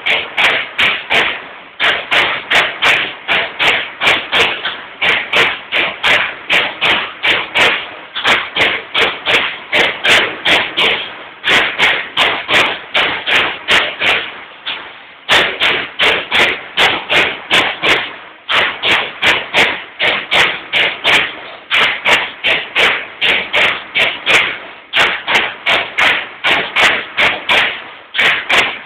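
Baykal BPM-T CNC turret punch press punching sheet metal: rapid, even hits at about four strokes a second, in runs of several seconds broken by short pauses.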